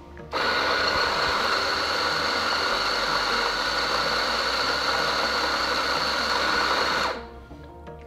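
Sanremo AllGround electric coffee grinder running, grinding an espresso dose into the portafilter. The motor starts suddenly just after the start, runs steadily for about seven seconds, and cuts off sharply.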